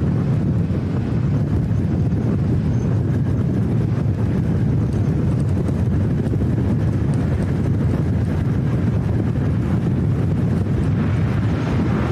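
Strong wind buffeting the microphone: a steady low rumble, with a brighter hiss building near the end.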